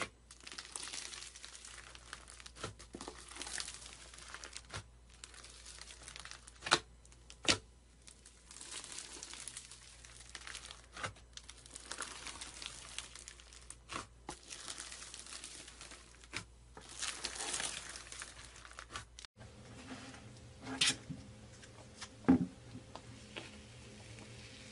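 Small polystyrene foam beads crinkling and rustling as a hand presses and sweeps through them, with a few sharp clicks in the rustle. After a cut near the end, a quieter low hum with a few sharp clicks.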